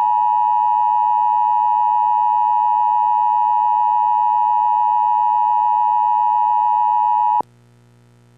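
Emergency Alert System attention signal: a loud, steady two-tone alert just under 1 kHz, held for about eight seconds. It cuts off suddenly about seven seconds in, leaving only a faint low hum.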